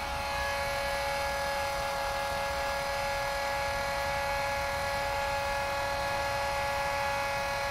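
Small electric blower working as a charcoal gasifier's startup fan, running steadily with a constant whine, pulling air and gas through the gasifier.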